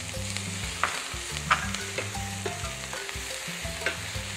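Chopped onions, garlic and pimento peppers sizzling steadily in hot oil in a stainless steel sauté pan as a wooden spatula stirs them. The spatula scrapes or knocks against the pan four times, loudest about a second and a half in.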